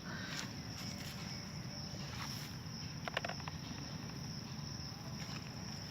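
Steady high-pitched insect drone, with a few faint clicks about three seconds in.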